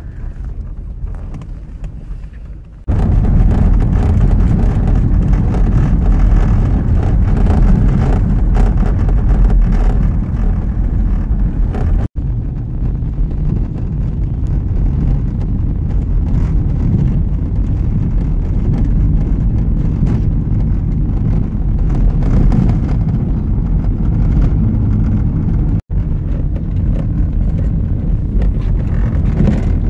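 Steady low rumble of road and wind noise inside a moving car. It jumps louder about three seconds in and cuts out for an instant twice, at the joins between clips.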